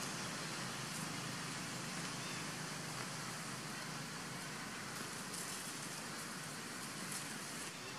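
Steady outdoor background hiss with no distinct animal calls.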